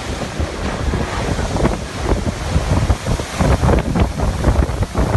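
Typhoon-force wind gusting hard and buffeting the microphone in irregular blasts.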